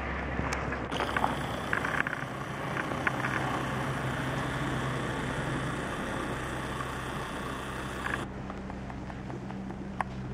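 Cessna F152 light aircraft flying low overhead, its four-cylinder Lycoming O-235 engine and propeller droning steadily. A hiss comes in about a second in and cuts off sharply after about eight seconds, with a few light clicks.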